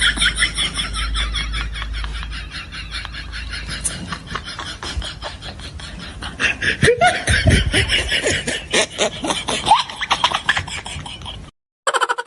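Laughing sound effect: a long run of rapid, pulsing laughter that cuts off abruptly about eleven and a half seconds in, followed after a short gap by another quick pulsing burst near the end.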